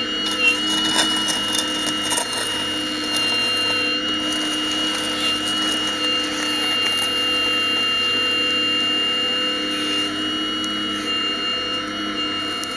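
Radio-controlled scale Hitachi 870 excavator working, with a steady high motor whine as it digs. Light scraping and crunching of soil against the bucket comes in the first few seconds.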